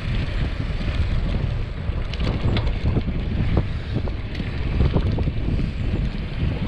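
Wind buffeting the microphone of a road bike descending at speed: a loud, steady low rumble. Scattered short clicks and rattles ride on top of it.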